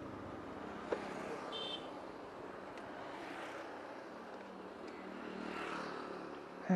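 Faint road and traffic noise as a TVS Jupiter 110cc scooter rolls slowly at the roadside after braking to a stop, with a single click about a second in. Another two-wheeler passes, swelling and fading near the end.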